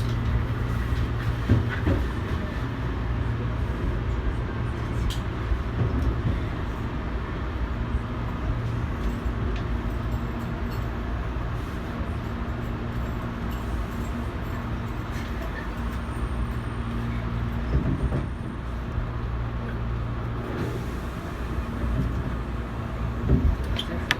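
Inside a Tobu 8000-series electric train car running on the line: a steady low hum and rumble of wheels on rail, with a few short knocks from rail joints. The sound shifts about 20 seconds in.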